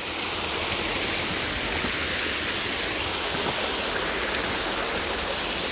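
Small waterfall splashing steadily down into a clear stream.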